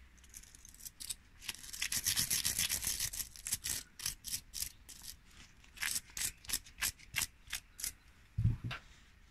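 A small rusty metal pin scrubbed against the bristles of a hand wire brush to scour off rust softened in a vinegar bath: fast back-and-forth scrubbing at first, then separate strokes about two a second. A single dull low knock near the end.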